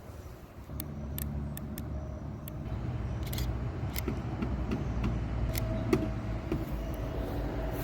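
Car engine running at low speed as the car is manoeuvred, a steady low rumble that grows louder about a second in, with several sharp clicks and ticks over it.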